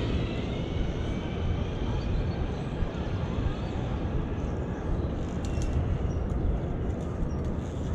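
Zip-line trolley rolling away along a steel cable: a steady low rumble with a faint whine that sinks slightly and fades over the first few seconds.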